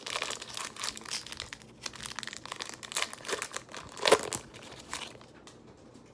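Pokémon card blister pack packaging crinkling and tearing as it is opened by hand, with the loudest crackle about four seconds in.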